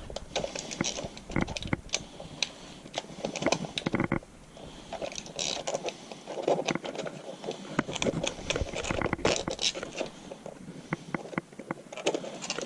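Fixing screw and screwdriver scraping and clicking against a light switch faceplate and its metal wall box, in scattered small clicks and scrapes, while the screw is fished about for the box's threaded lug hole.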